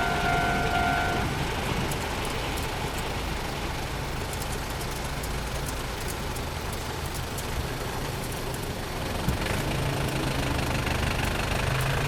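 Level-crossing warning signal sounding in a steady tone that cuts off about a second in, leaving idling vehicle engines at the crossing. From about nine seconds in, one engine grows louder.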